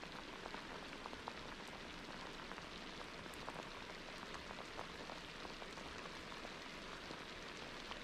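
Steady rain falling: an even hiss dotted with many small ticks of single drops.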